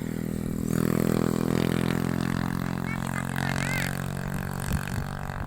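An engine running steadily, loudest about a second in, then easing off a little.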